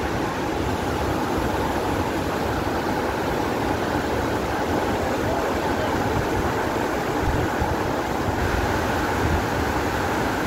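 Steady rushing of the Nyahururu Falls waterfall, an even, unbroken noise with a deep rumble underneath.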